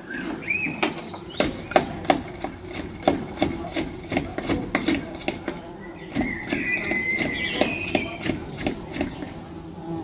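Bumblebees buzzing, agitated after their nest was damaged, as a steady low hum with many sharp irregular taps, a few a second. A bird chirps near the start and sings briefly about six to eight seconds in.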